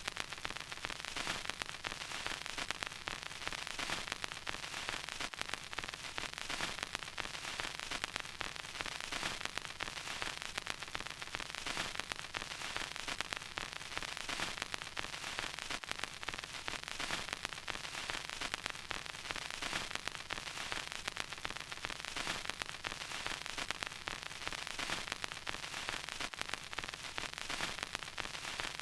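Vinyl record surface noise: a steady hiss with dense, irregular small pops and crackles from the stylus running in the groove.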